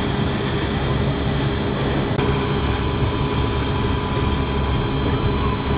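A steady engine drone with a low hum that does not change.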